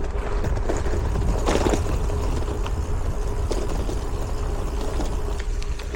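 Gravel bike being ridden: a steady low rumble of wind on the action camera's microphone and tyre noise, with scattered light knocks and a faint steady hum.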